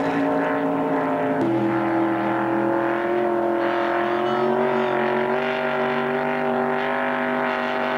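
A racing boat's engine running hard at high revs, one steady pitched note. The note changes abruptly about a second and a half in, then creeps slowly upward in pitch.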